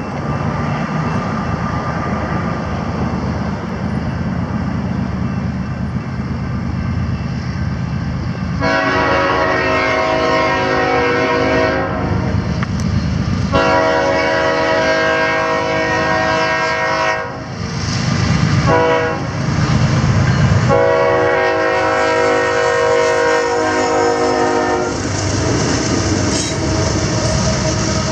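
CSX diesel freight locomotives approaching a grade crossing, engines rumbling steadily, sounding the air horn in three long blasts starting about 9, 13 and 21 seconds in. The engine noise grows as the locomotives reach the crossing near the end.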